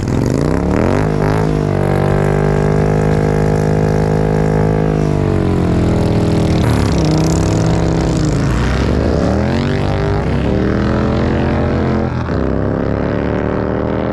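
Motorcycle engine revving. It starts suddenly, holds a steady high rev for a few seconds, then drops and is blipped up and down several times, and ends on a slow, steady climb in pitch.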